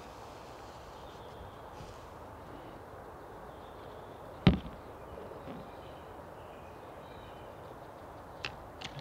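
A single sudden thump about halfway through, over a faint steady background hiss, with a few short faint clicks near the end.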